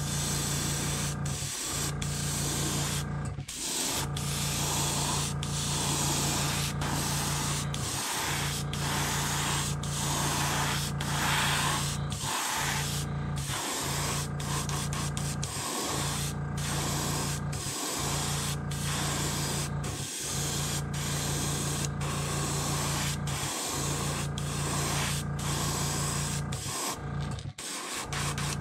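Airbrush hissing as it sprays a pearl gold base coat onto a jerkbait lure, in runs broken by short pauses every second or two. A steady low hum sits underneath.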